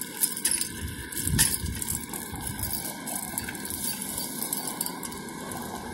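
Walking on concrete with a handheld phone: footsteps and rubbing on the microphone, with irregular low thumps and small crackles, over a steady outdoor background noise.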